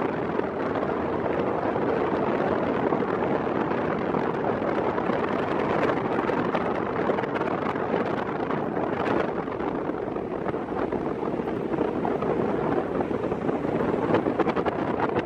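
Steady wind rushing over the microphone, an even, unbroken noise.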